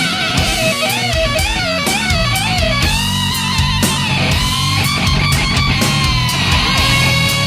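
Heavy metal music in an instrumental passage: a lead electric guitar plays held, wavering notes with bends over rhythm guitar and steady drum hits.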